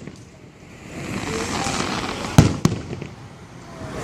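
Aerial fireworks going off: a swelling hiss, then two sharp bangs a quarter second apart about two and a half seconds in, followed by a few fainter cracks.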